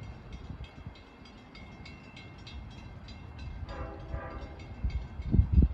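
A bell ringing rapidly, about three to four strokes a second, with a short, distant blast from the train's horn about four seconds in. Near the end come a few strong low thumps.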